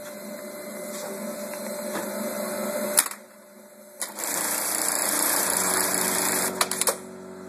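Juki LK1900 bartacking machine homing after a reset: its motors drive the work clamp back to the home position in two whirring runs, split by a sharp click and a short lull about three seconds in. The second run ends in a few quick clicks near the end, and then only a steady electrical hum remains.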